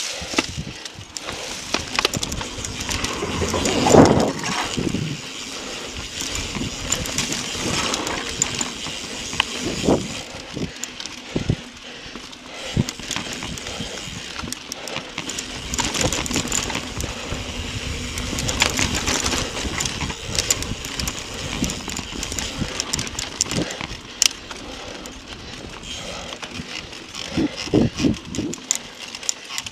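Mountain bike riding fast over dry leaf-littered dirt singletrack: tyres crunching through leaves, with the bike's chain and frame rattling and clicking over bumps, and a louder knock about four seconds in.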